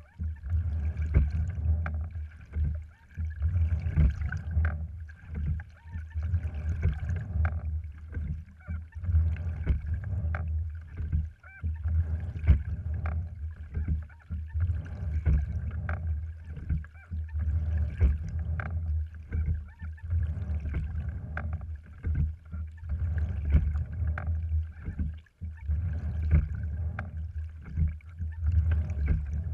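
Sculling in a cedar-framed, cloth-covered rowing wherry with a sliding seat: repeated knocks and clicks from the oars in their oarlocks and the rig, over water washing along the hull and a steady low rumble.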